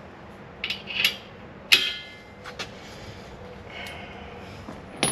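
Steel three-point hitch parts clanking as they are handled and fitted. A couple of light knocks come about a second in, a sharp metal clank that rings on follows just after, and another knock comes near the end.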